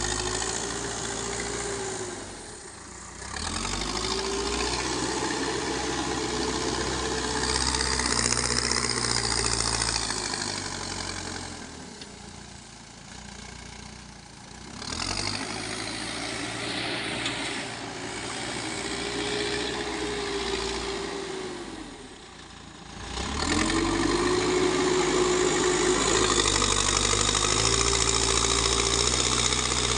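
Backhoe loader's diesel engine revving up under working load and dropping back toward idle, over and over: four spells of high revs of several seconds each, with short dips between.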